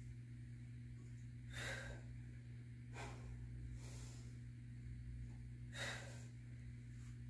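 A person breathing hard with the exertion of a dumbbell lunge deadlift set: four sharp breaths a second or two apart, over a steady low hum.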